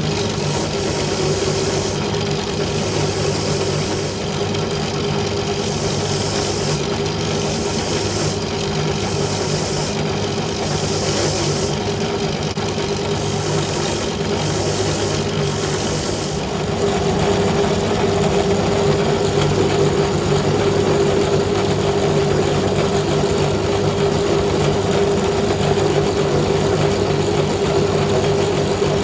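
A motor-driven machine running steadily with a constant hum. A hiss comes and goes several times over the first half, and the sound gets fuller and a little louder from about halfway on.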